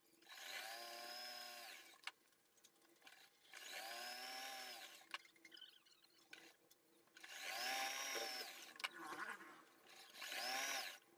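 Domestic sewing machine stitching pintucks in cotton fabric, running in four short bursts of one to two seconds, each speeding up, holding, and winding down. Small clicks sound in the pauses between runs.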